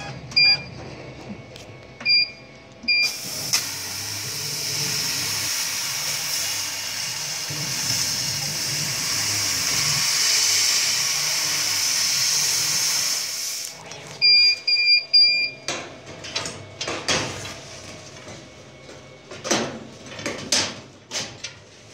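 Laser cutting machine: a few runs of short high beeps, then about ten seconds of steady hiss of assist gas blowing through the cutting nozzle while the head cuts a thin metal sheet, switching off abruptly, followed by another run of beeps. In the last seconds, clicks and light knocks of the cut-out metal pieces being handled.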